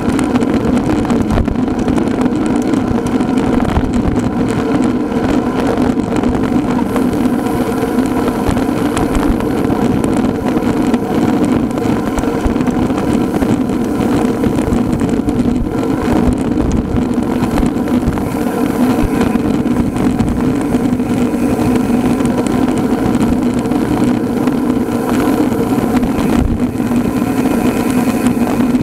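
A vehicle engine running steadily at a constant speed, a continuous hum with noise under it and no change in pitch.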